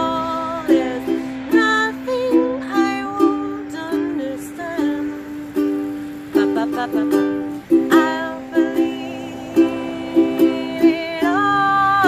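Ukulele played in a steady rhythm of plucked chords, with a woman singing held, wavering notes in phrases over it.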